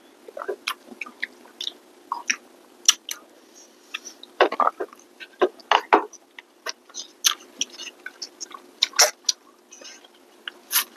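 Close-up eating sounds of people eating rice and curry by hand: chewing and mouth smacks, heard as irregular short clicks, over a faint steady hum.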